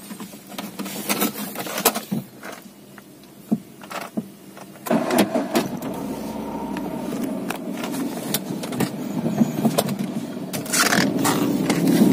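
Tata Nano on the move: road and running noise, with scattered clicks and knocks at first, then a steadier, louder running sound from about five seconds in that builds toward the end.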